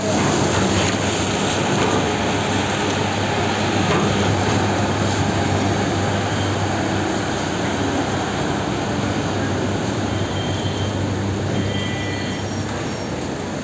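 Steady mechanical rumble of sugar-mill cane-handling machinery and a loaded sugarcane truck's diesel engine as the truck pulls onto the unloading platform. Brief faint high squeaks near the end.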